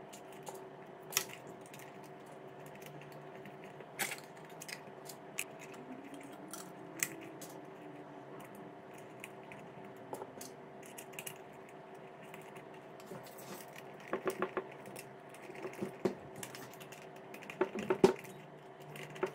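Small metal screws, nuts and washers clicking and tapping as clear plastic eye shields are fitted to a bench grinder's wheel guards, with a quick run of clicks about two-thirds of the way in and a screwdriver tightening a screw near the end.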